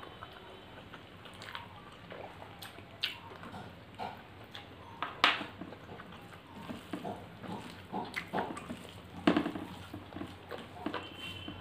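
Close-up eating sounds of two people eating rice and curry by hand: chewing and lip smacking, with wet squishing as fingers mix rice on the plates. Irregular short smacks and clicks, a few louder ones about five and nine seconds in.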